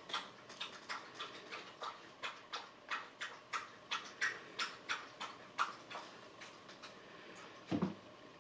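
A dachshund lapping water from a bowl: a steady run of wet clicks, about three laps a second, that fade out after about six seconds, followed by one louder, lower thump near the end.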